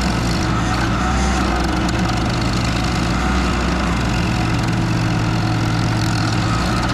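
Case TL100 mini skid steer running steadily, driving a Toro stump grinder attachment: a loud, even engine drone.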